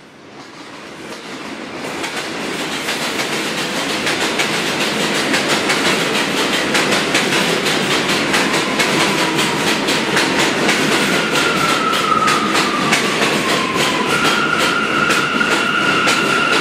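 Bombardier R179 subway train running past, building from a faint rumble to a loud, steady rattle with rapid clickety-clack of wheels over rail joints. About ten seconds in, a high whine joins, sliding down in pitch; near the end it holds steady with a second, higher tone.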